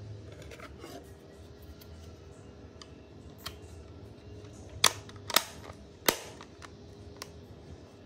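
Plastic back cover of a Midea air-conditioner remote control being handled and snapped shut: scattered soft plastic clicks, with three loud, sharp clicks in quick succession about halfway through.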